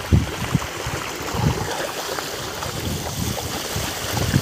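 Wind buffeting the phone's microphone: low gusty rumbles over a steady hiss.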